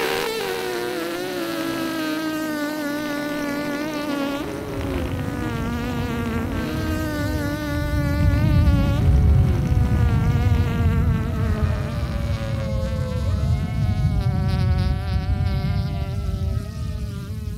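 A soundtrack drone of several warbling pitched tones that slide slowly downward, with a low rumble coming in about four seconds in and loudest around the middle. A second layer of wavering higher tones enters about two-thirds of the way through.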